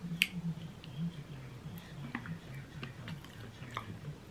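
Eating sounds: a wooden spoon clicking and scraping against a ceramic plate as yogurt and banana are scooped up, with quiet chewing. The sharpest click comes just after the start, over a low hum.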